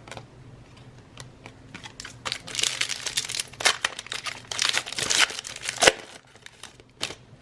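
Foil wrapper of a Donruss football card pack crinkling and tearing as it is opened, in a dense run of crackles between about two and six seconds in.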